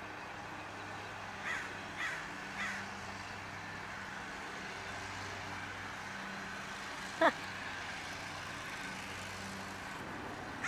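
Crows cawing three times in quick succession at a distance, over a steady low hum of traffic, with one short, louder sound about seven seconds in.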